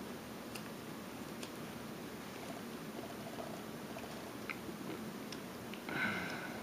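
Small whittling knife taking light cuts in a wooden carving: faint scattered clicks of the blade slicing wood, then a brief louder rasp of the knife or gloved hand against the piece about six seconds in.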